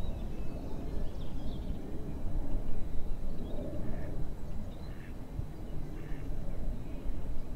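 Wind rumbling and buffeting on the microphone, with faint short bird calls dotted through it.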